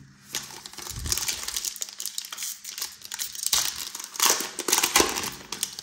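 Foil wrapper of a trading card pack crinkling as it is torn open and pulled off by hand, with louder crackling bursts in the second half.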